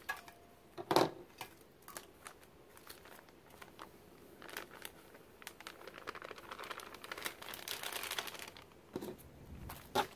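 Scissors snipping open a packet of batter mix, a sharp cut about a second in, then the packet crinkling and rustling as the mix is shaken and poured out into an enamel bowl, loudest for a few seconds in the second half, with a few light clicks near the end.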